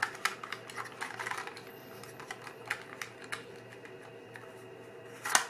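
Holga 135 film camera being closed after loading: a string of light clicks and taps as the back is fitted to the body, then one louder sharp snap near the end as it shuts.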